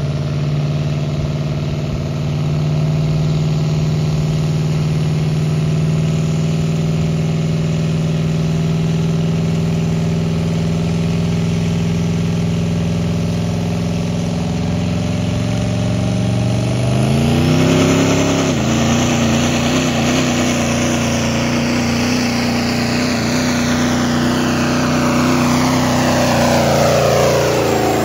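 Pro-street class turbocharged diesel pickup engine idling steadily while hitched to a pulling sled. About two-thirds of the way in it revs up quickly and holds high rpm under load as the truck pulls the sled.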